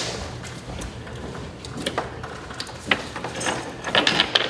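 Light metal clinking and rattling of a thin fish chain as it is fed hand over hand down into a wall cavity to pull a cable through, the clinks growing busier about three seconds in.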